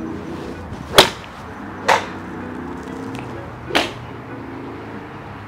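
Golf club striking a ball off a driving-range mat: a sharp crack about a second in, followed by two fainter strikes of the same kind at about two and four seconds.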